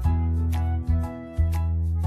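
Background music: an instrumental tune with a strong bass line and a steady beat.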